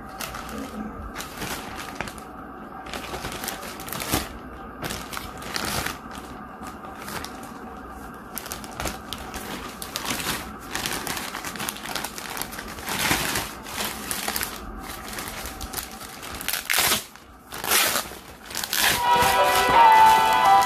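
Background music with irregular crinkling and clicking of handling over it; the music grows louder near the end.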